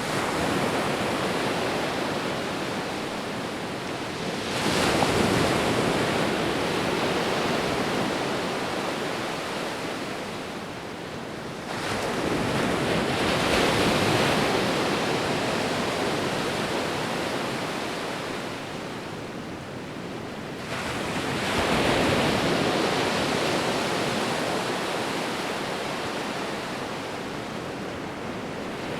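Sea waves breaking on a shore: three waves crash, about 4.5, 12 and 21.5 seconds in, each with a sudden rise in the wash and a slow fade as it runs out, over a continuous surf hiss.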